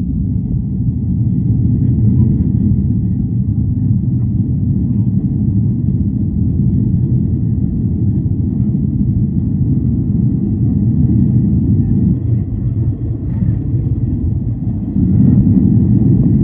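Jet airliner cabin noise during the climb after take-off: a steady low rumble of engines and rushing air heard from a window seat, with a faint high whine above it. The rumble swells slightly near the end.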